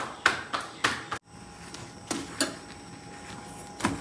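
Hands slapping a ball of roti dough flat between the palms, about three sharp slaps a second, stopping about a second in. Then a steady gas-stove burner hiss with a few light clicks of steel tongs against the tawa.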